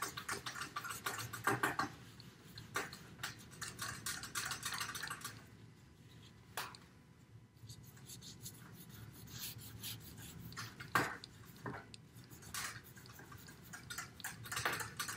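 Paper towel rubbing and wiping a tabletop clean in quick, uneven strokes, with a few light knocks.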